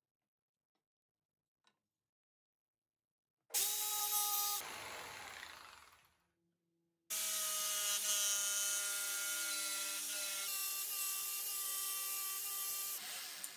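Electric jigsaw cutting a curve in a wooden board. A short burst starts suddenly about three and a half seconds in and dies away, then a longer steady run with a motor whine lasts from about seven seconds until just before the end.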